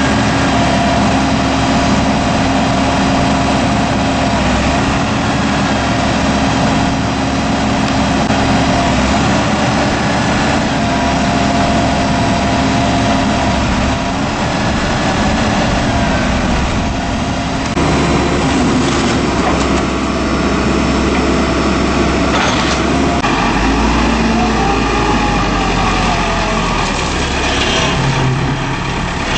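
Diesel engine of a 2003 Case 580M backhoe loader running steadily. Its note changes about two-thirds of the way through, and a whining tone rises and falls near the end.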